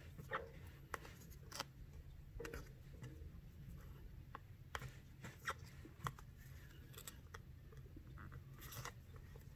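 Faint, irregular small clicks and scratches from hand bead embroidery: needle, thread and beads being worked through a felt backing as the piece is handled.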